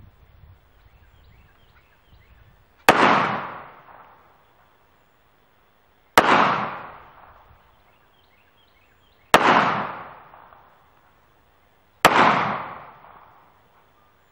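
FN Five-seveN MK2 pistol firing four single 5.7x28mm shots, about three seconds apart. Each is a sharp crack followed by an echo that dies away over about a second.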